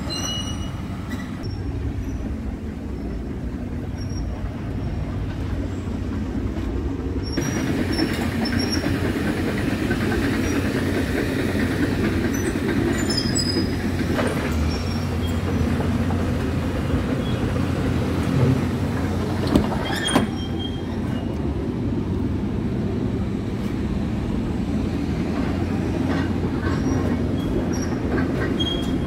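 Scania R450 tractor unit's 13-litre inline-six diesel idling with a steady low rumble. Two short sharp knocks come about two-thirds of the way through.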